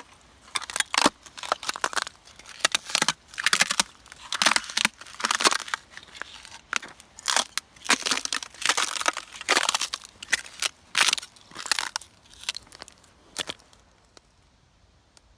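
Thin, crisp sheet ice crunching and crackling as it is stamped on and broken underfoot, in a quick, irregular run of crunches that stops near the end.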